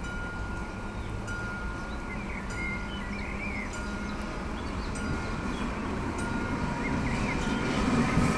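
AŽD 71 level crossing warning bell ringing, a repeated high electronic ding, while the barriers are down. Over the last seconds a low rumble builds as the train approaches.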